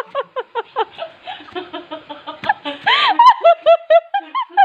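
A person close by giggling: a long run of short, quick, stifled laughs, several a second, with a louder burst about three seconds in.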